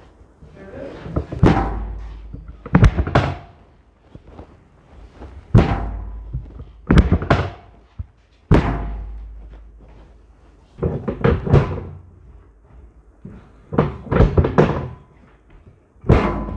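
Heavy thumps from a chiropractic adjustment on a patient's body and treatment table, coming every second or two, some single and some in quick runs of two or three.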